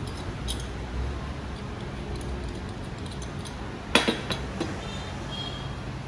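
Handling of a cordless angle grinder's plastic body and parts: light clicks and knocks, with a sharp clack and a short rattle about four seconds in.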